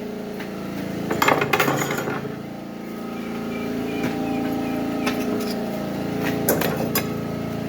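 Tools and metal objects clattering as they are handled and set down, in a burst about a second in and again near the end, over the steady hum of a running generator.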